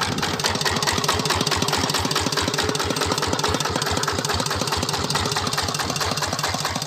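Kubota RD110 DI-2T single-cylinder horizontal diesel engine with balancer, running steadily at low idle with an even, regular chug.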